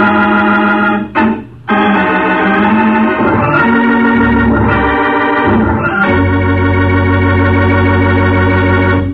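Organ music bridge closing a dramatic scene of an old-time radio show. Loud held chords break off briefly about a second in, then start again and shift through a few changes. It ends on a long held chord with a deep bass note that stops suddenly.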